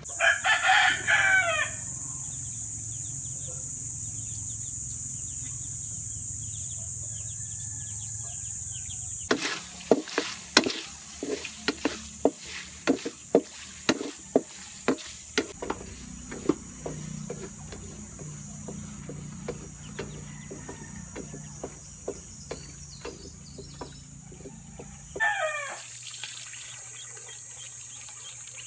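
A rooster crows once in the opening seconds and again near the end, over a steady high-pitched buzz. In between, for about fifteen seconds, a metal spatula clacks and scrapes irregularly against a wok as cubed pork is stirred and fried.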